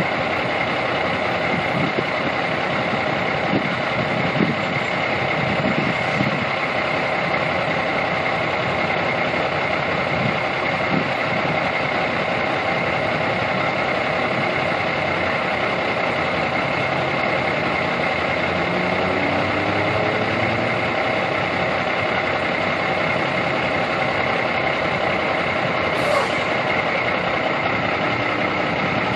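Steady traffic drone of idling and slowly moving vehicles, with a constant high whine held over it and irregular low rumbles in the first half. A brief sharp click sounds near the end.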